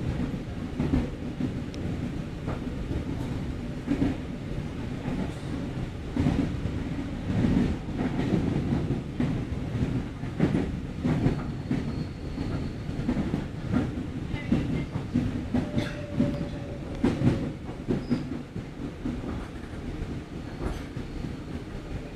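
Moving passenger train heard from inside the car: a steady low rumble with irregular clicks and knocks as the wheels pass over rail joints.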